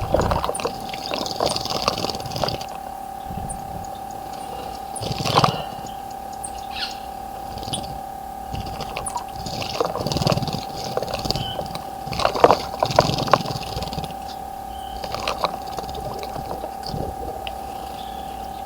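Small birds splashing in a garden bird bath, wing-flicking the water in short irregular bursts about five times, the biggest a little past the middle, with high chirps between the bursts and a steady tone underneath.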